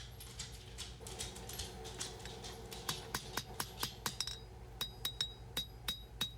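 Hand hammer striking hot 1095 high-carbon steel on an anvil while forging the handle profile of a chef's knife. Quick, lighter strikes give way about halfway through to steady blows about three a second, each followed by a short high ring.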